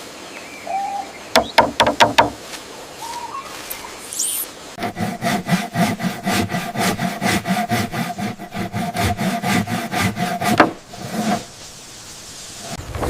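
Hand sawing: a run of quick back-and-forth strokes, about four a second, starting about five seconds in and stopping near the eleven-second mark with a louder knock. A few sharp clicks and knocks come before it.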